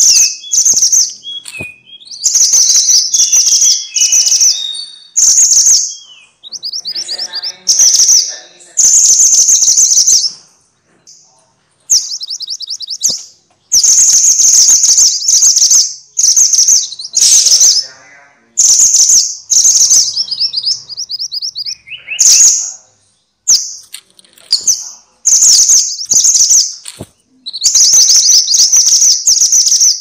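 Minivet (Pericrocotus) song: loud, high-pitched, rapid chirps run together in bursts of about a second, repeated over and over with short gaps.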